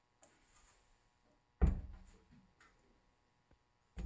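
The heavy steel tube of a 10-inch Newtonian reflector telescope set down on end on a wooden floor: one dull thump about a second and a half in. A shorter, sharper knock follows near the end.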